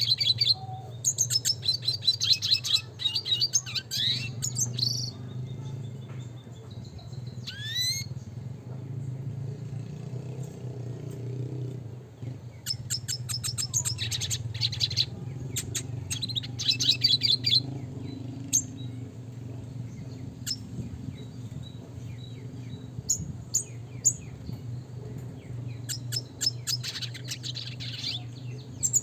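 Red siskin in full song: three bursts of fast, high twittering and trills, with a rising whistled sweep about eight seconds in and scattered single notes between the bursts. A steady low hum runs underneath.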